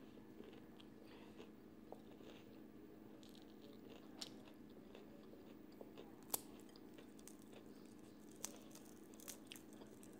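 Faint chewing and crunching of crispy fried chicken, with a few sharp clicks, the loudest about six seconds in, over a steady low hum.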